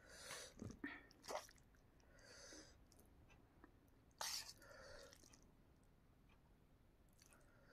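Faint scrapes and clicks of a fork against a steel tiffin container as noodles are lifted out onto a plate.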